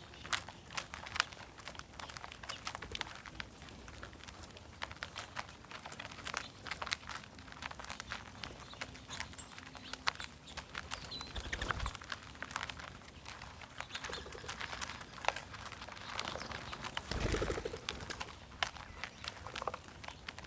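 Mourning doves cooing, with many short clicks and taps throughout.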